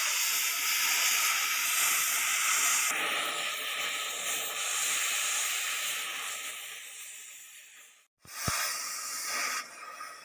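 Oxy-fuel cutting torch hissing steadily as its flame cuts through a steel excavator track chain link. The hiss fades after about six seconds, drops out briefly just after eight, then returns more quietly.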